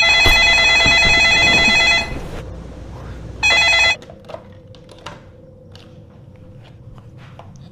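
Corded landline telephone ringing: one ring of about two seconds, then a short ring cut off a little before halfway through as the handset is lifted. A few faint clicks of the handset being handled follow.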